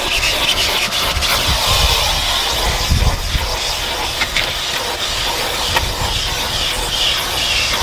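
Shop vacuum running with a steady hiss as its crevice-tool nozzle sucks dirt and debris off a car's cargo-floor carpet, with occasional small clicks. It cuts off suddenly at the end.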